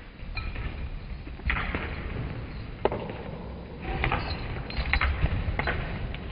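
Hoofbeats of a pony cantering and jumping on soft arena footing: dull, irregular thuds with a few sharp knocks.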